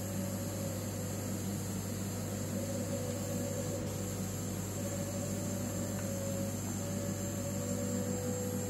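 Homemade CO2 laser cutter running while cutting 4 mm plywood: a steady electrical hum, with the head's stepper motors whining at a pitch that shifts and breaks off briefly a few times as the head traces curves.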